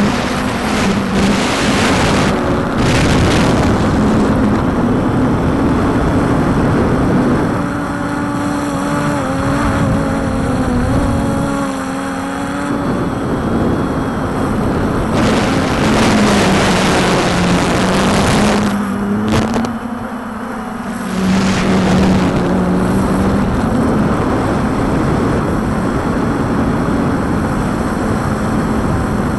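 Walkera Tali H500 hexacopter's electric motors and propellers humming, the pitch wavering up and down as the motors work to hold it steady in strong wind. Gusts of wind rush over the microphone near the start and again around the middle.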